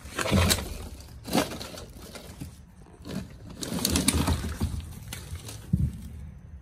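Plastic bags and trash rustling and crinkling as they are rummaged through by hand, in irregular bursts, loudest near the start and about four seconds in.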